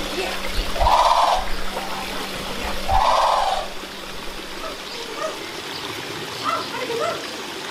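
Outdoor animal-enclosure ambience: water trickling steadily, two short loud bird calls about two seconds apart, then scattered short rising chirps from small birds.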